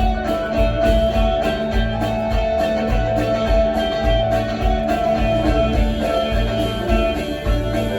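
Live rock band playing an instrumental passage with guitar to the fore over a pulsing bass line, without singing.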